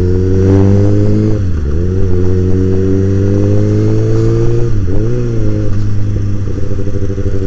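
Kawasaki ZX-6R inline-four sport-bike engine running under way, its pitch climbing slowly, with two short dips, about a second and a half in and about five seconds in.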